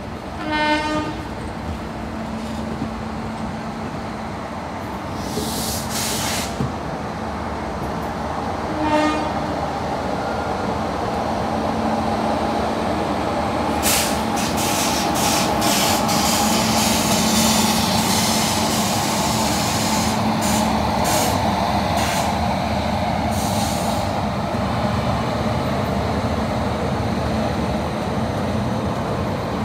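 An Indian Railways electric locomotive and its express coaches roll slowly into a station. There are two short horn sounds, a loud one about a second in and a fainter one near nine seconds. A steady rumble grows as the locomotive passes, with repeated bursts of hiss from about fourteen seconds on.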